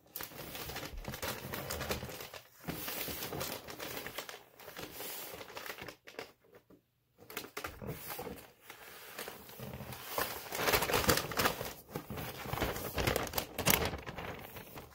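Sheets of gift-wrapping paper crinkling and rustling as they are handled and folded around a box, in irregular bursts with a brief pause about six seconds in, growing busier and louder in the second half.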